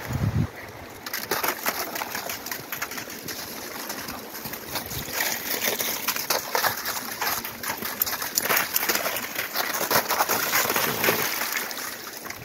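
Shallow creek water running over rock, with repeated splashing as dogs' paws run through it, starting about a second in after a low thump.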